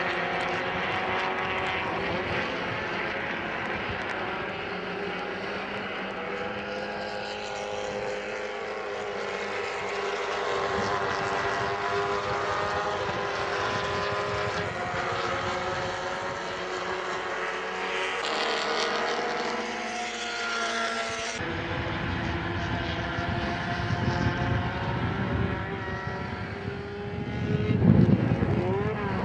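Several small-displacement race car engines running at high revs as the field laps the circuit, their pitches rising and falling against one another. The sound changes abruptly about three-quarters of the way through, and a louder low rumble swells near the end.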